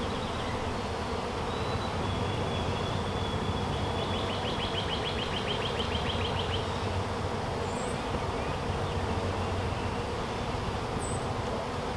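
Honeybees buzzing steadily as a cloud of them flies around an open hive. A faint high trill sounds in the middle, and there are two short high chirps later on.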